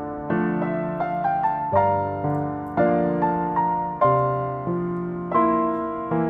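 Background piano music: gentle chords and melody notes struck about one or two a second, each note fading after it is struck.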